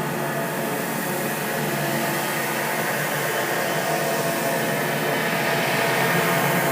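Steady rushing noise with faint sustained tones inside it, swelling slightly in level: an eerie ambient drone used as a scary sound effect.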